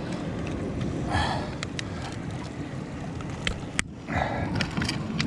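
Steady outdoor wind and water noise around a small boat, with a few short knocks.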